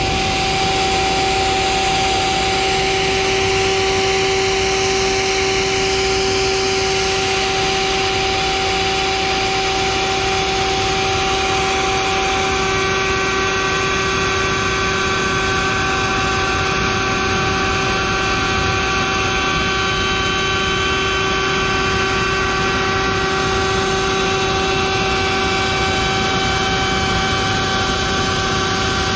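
Table-mounted router running at full speed with a loud, steady whine, its straight bit jointing the edge of a board fed along the fence. A few higher tones join the whine about twelve seconds in.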